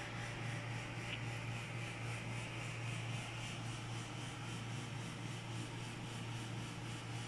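Steady low hum with an even hiss: background room noise with no distinct event.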